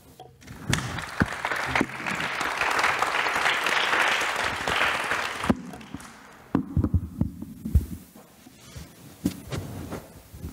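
Audience applauding for about five seconds, swelling and then fading out, followed by scattered low thumps and knocks.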